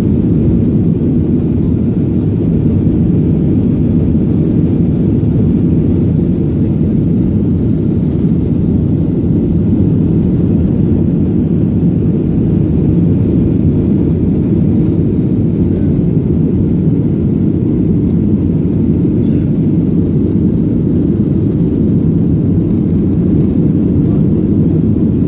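Jet airliner taking off: a loud, steady low rumble of engines and airflow that holds level throughout, with a few faint ticks.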